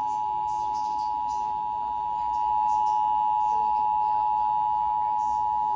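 Emergency Alert System two-tone attention signal, relayed by a TFT EAS 911 encoder/decoder during a Required Monthly Test. It is two pure tones of 853 and 960 Hz sounded together as one steady, loud, unbroken dual tone.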